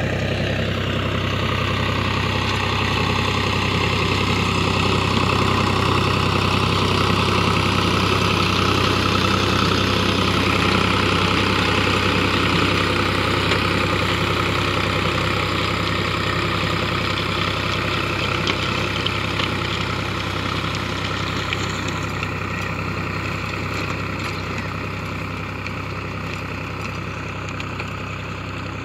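Tractor diesel engine running steadily under load as it pulls a working rotavator, which adds a dense churning noise as it tills the soil. A tone dips in pitch in the first second, and the sound slowly grows fainter over the last several seconds as the tractor moves away.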